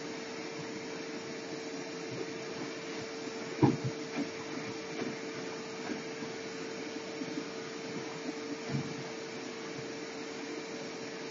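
Steady machine hum and hiss with one constant mid-pitched tone. A sharp knock comes about three and a half seconds in, and a few softer knocks follow later.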